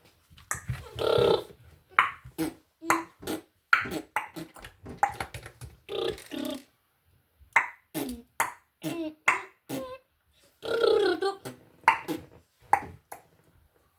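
A child making a rapid string of short mouth noises and vocal sounds, like beatboxing, with brief pauses between them.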